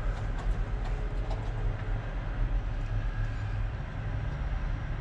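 Diesel truck engine idling, a steady low rumble.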